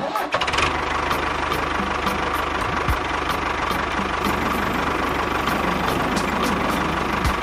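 Tractor engine sound effect running steadily at idle, with a fast, even low chugging.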